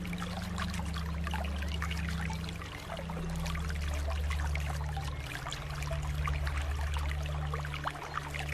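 Running water trickling and splashing steadily, with many small droplet splashes, over a low hum that shifts in pitch every second or so.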